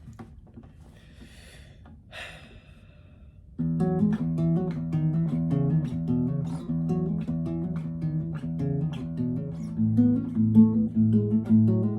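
Acoustic guitar played solo, starting about a third of the way in with ringing plucked notes, and from about ten seconds in a low bass note repeated under the melody. Before it begins there are two short, soft hissing noises.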